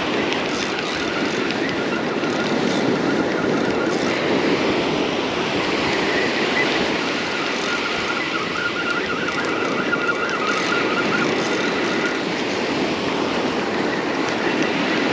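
Steady rush of ocean surf on the beach, with wind noise on the microphone and a faint wavering high tone now and then.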